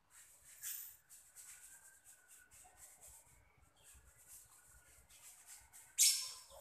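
Water from a garden hose splashing over a small dog as it is rubbed down by hand, in irregular wet strokes, with a louder splash about six seconds in. A few faint high squeaks sound over the water.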